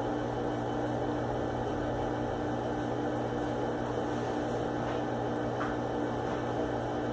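A steady hum, with a low drone and a fixed tone above it that holds evenly throughout.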